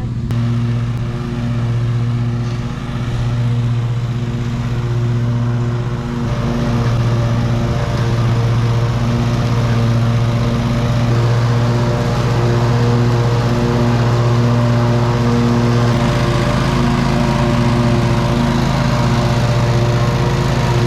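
Riding lawn mower engine running steadily under mowing load, a steady engine hum that grows a little louder about six seconds in.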